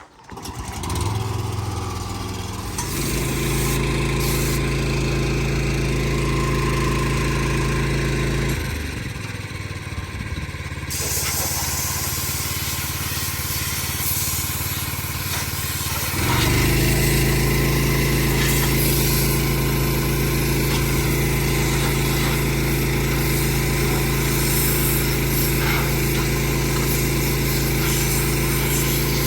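A large engine comes up about a second in and runs steadily. About 9 s in it falls back to a quieter, thinner sound. About 16 s in it picks up again and runs louder and steady.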